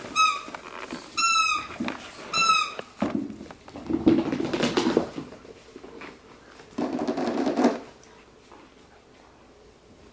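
A puppy at play: three short, high squeaks about a second apart, then two stretches of rustling and scuffling on a fleece blanket.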